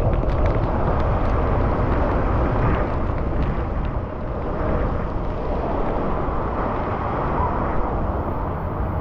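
Steady riding noise from a bicycle in the rain: wind buffeting the microphone, with a low rumble and the hiss of wet road and traffic.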